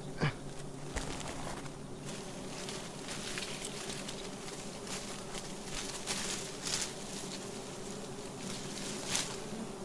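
A swarm of giant honeybees (Apis dorsata) buzzing in a steady hum: the colony is stirred up as its comb is cut open for honey. Brief rustles of leaves and branches come now and then over the hum.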